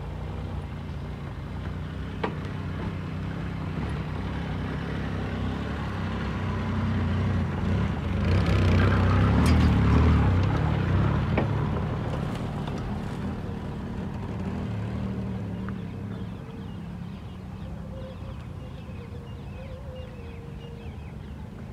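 Maruti 800's small three-cylinder petrol engine running as the car drives over rough ground. It grows louder about eight seconds in, peaks around ten seconds, then settles back to a steadier, quieter drone.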